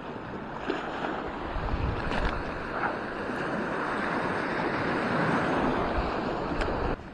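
Small waves breaking and washing over a pebble and shingle shore, a steady rushing surf, with wind on the microphone.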